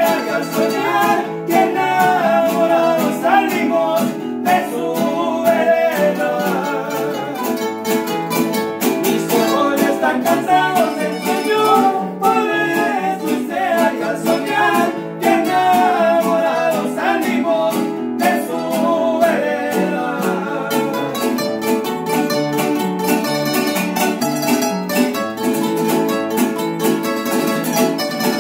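Live acoustic string group: several guitars strumming chords, with a small high-pitched plucked instrument playing the melody. A voice sings over them with a wavering pitch for stretches of the piece.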